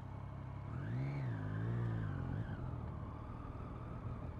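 Triumph Street Triple's three-cylinder engine running as the bike pulls away after being restarted. Its note rises and falls about a second in, holds briefly, then drops back to a low rumble under road noise.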